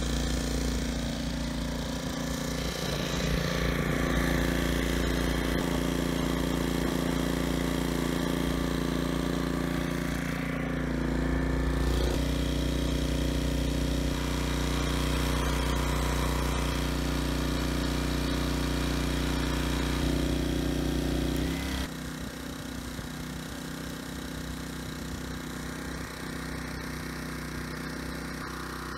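Briggs & Stratton G1000M portable generator's Vanguard engine running steadily under a 700-watt load. Its speed shifts slightly as the throttle is adjusted to bring the output up from running slow to about 60 Hz. About three-quarters of the way through, the running suddenly becomes quieter.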